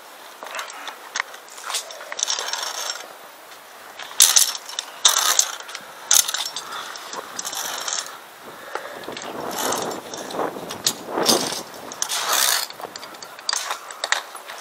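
Via ferrata lanyard carabiners clinking and sliding along a steel safety cable, with the scrape of a gloved hand on the cable: irregular metallic clicks and rasps.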